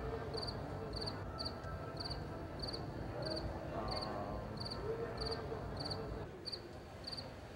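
A cricket chirping steadily, about three short pulsed chirps every two seconds, over faint background chatter of people.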